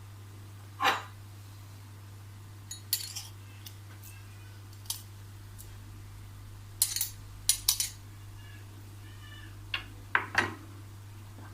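Kitchen utensils and dishes clinking and knocking during food preparation: scattered short, sharp knocks, the loudest about a second in and a quick cluster a little past the middle, over a steady low hum.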